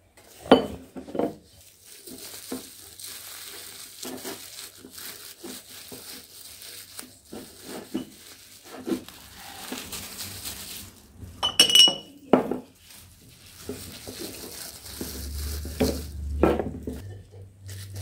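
Thin plastic fridge bags rustling and crinkling as they are handled and pushed into glass jars. Sharp knocks and glass clinks come from the jars on a wooden table; the loudest are about half a second in and about two-thirds of the way through, the second with a ringing glassy clink.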